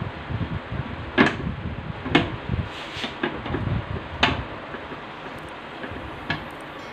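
Long screwdriver turning screws into a rice cooker's metal bottom plate: handling rumble and a series of sharp metallic clicks, the three loudest about one, two and four seconds in.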